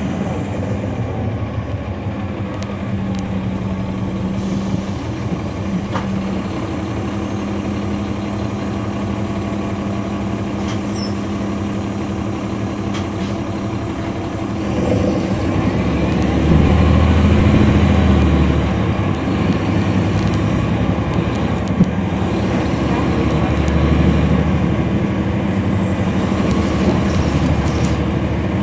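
Caterpillar C13 ACERT diesel engine of a NABI 416.15 transit bus, heard from inside the bus while running. It grows louder and deeper for a few seconds about halfway through, and again briefly later, with a few sharp clicks along the way.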